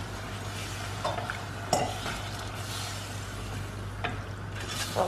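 Spiced citron and onion mixture sizzling in a pan as it is stirred, with a few light knocks of the spoon against the pan.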